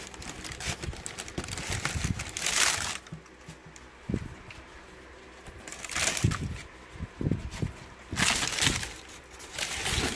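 Tissue paper rustling and crinkling in several bursts as sneakers are handled and lifted out of their shoebox, with soft knocks of the shoes and box in between.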